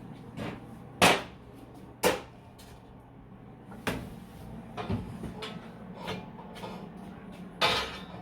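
Irregular metal knocks and bangs, a second or more apart, while steel plate for a Jeep frame section is being bent; the loudest comes about a second in. A steady low hum runs underneath.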